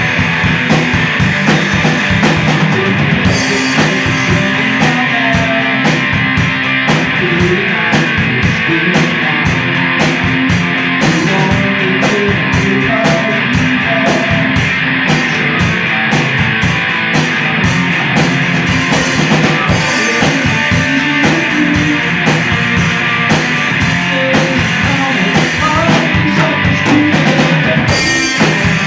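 Live rock band playing: a drum kit with guitars, steady and loud.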